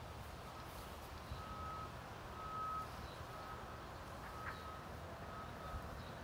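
Faint high-pitched beeping at one steady pitch, sounding on and off in short dashes of uneven length, over a low background rumble.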